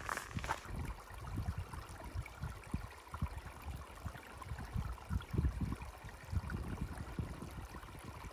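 A few footsteps on a stony trail right at the start, then wind buffeting the microphone in uneven gusts, with a faint trickle of water from a small stream.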